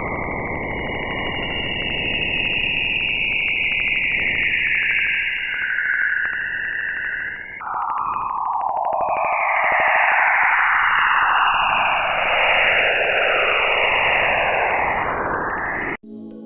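Jupiter's radio and plasma-wave emissions, picked up by a spacecraft and converted to audible sound: a continuous electronic hiss with whooshing bands that sweep up and down in pitch, cutting off suddenly near the end.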